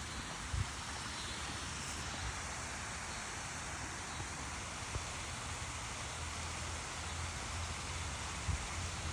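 Steady rush of water pouring over a small waterfall into a river, with a few brief low bumps.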